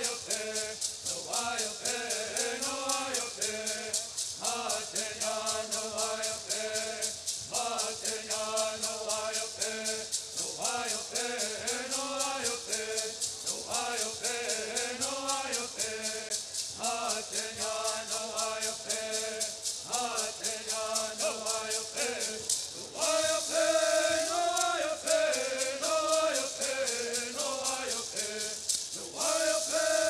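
Bird songs: a group of men chanting together in short repeated phrases over the steady, even shaking of gourd rattles. The singing and rattling grow louder about three-quarters of the way through.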